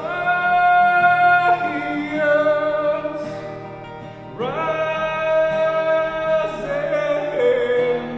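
A man singing over his own acoustic guitar accompaniment: two long sung phrases, each sliding up into a held note and then stepping down in pitch, with the guitar strumming underneath.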